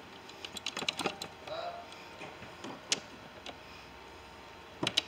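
Hand tools clicking and tapping on metal at irregular intervals, with a few sharper clicks about three seconds in and near the end.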